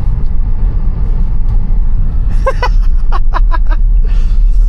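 Steady low rumble of tyres on a snowy road, heard inside the cabin of an electric Tesla with no engine sound.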